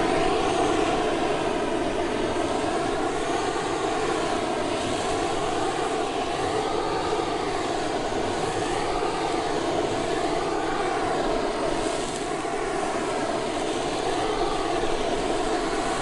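Butane blowtorch flame burning steadily, a continuous rushing noise.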